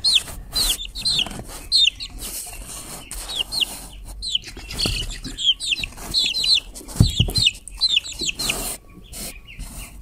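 Young chicken chicks peeping over and over in short, falling chirps, with feathers rustling and wings flapping as they move about in a cardboard box. There is a dull bump about seven seconds in.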